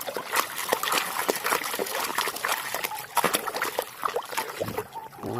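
Water trickling and splashing as a large mud-covered toy is washed, with many small irregular splashes and drips.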